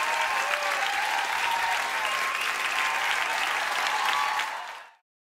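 Audience applauding and cheering, with a few voices whooping through the clapping. It fades out quickly near the end.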